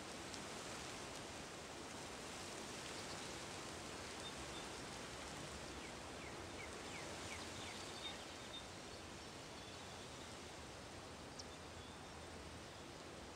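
Faint steady outdoor ambience of wind through long grass, with a few short faint chirps about six to seven seconds in.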